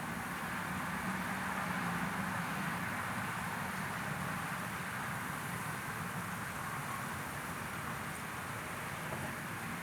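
Steady white noise for sleep: an even, unchanging rushing sound with a low rumble underneath.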